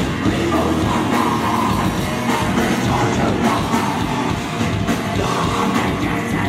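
Live heavy rock band playing loudly: electric guitars and drum kit, with the vocalist singing into a microphone.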